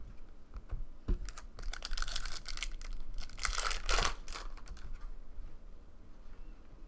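2013 Panini Prizm Baseball cards being shuffled and flipped through by hand, with irregular rustling, flicking and clicky taps as the stiff cards slide against each other. It is loudest about three and a half to four seconds in, then quieter.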